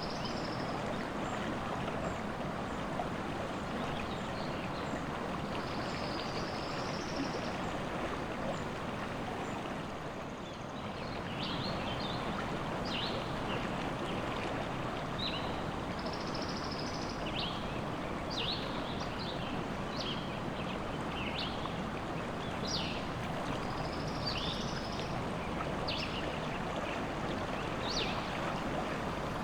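River water flowing steadily, with small birds singing over it: short high chirps and brief warbled phrases, coming more often in the second half.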